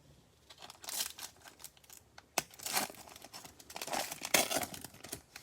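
Crinkling and tearing of a Prizm baseball card pack's wrapper as it is torn open, in irregular crackling bursts with the loudest about a second in, around three seconds and past four seconds.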